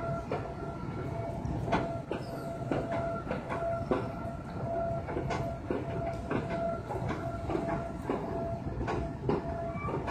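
A rail vehicle running: a steady rumble and whine with irregular clacks.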